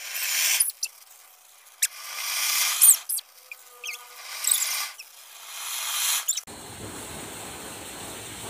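Ground-fountain fireworks (flower pots) hissing as they spray sparks, in four separate bursts that each swell for about a second and stop short, some with thin high whistles. From about two-thirds of the way in, a steadier, lower hiss from a hand-held spark-spraying firework.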